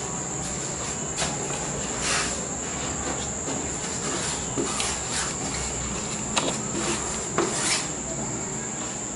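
A pink plastic flooring sheet being handled and pressed into place on the floor, giving several short rustles and knocks, over a steady high-pitched whine.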